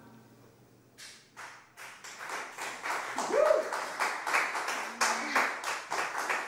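A small group of people clapping at the end of a song, starting about a second in and growing louder, with a brief voice calling out in the middle.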